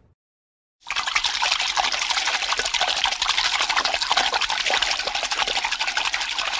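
Water spraying steadily from a hose onto a horse's wet coat during a wash-down, starting about a second in after a short silence.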